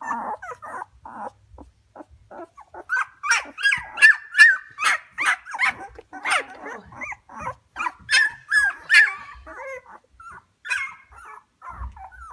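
Young Goldendoodle puppies, under two weeks old, whimpering and squealing in a rapid string of short, high cries, busiest and loudest in the middle.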